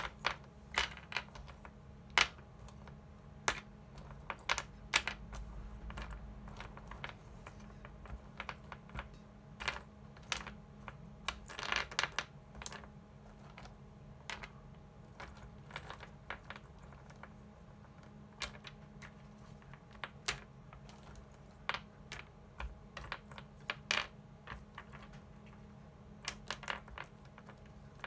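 Small ELNA aluminium electrolytic capacitors (680 µF 35 V, RJB/RJF series) clicking and clattering against one another and the table as a hand sorts through a loose pile. The clicks are light and irregular, with a brief flurry a little before halfway.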